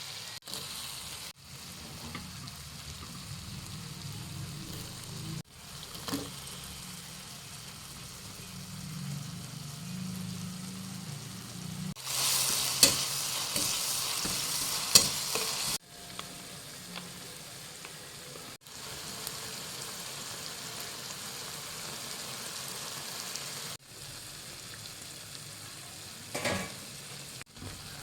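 Food sizzling as it fries in a pan while it is stirred, with a louder, brighter stretch of sizzling in the middle and a few sharp clinks of the utensil against the pan. The sound changes abruptly several times where the clips are cut together.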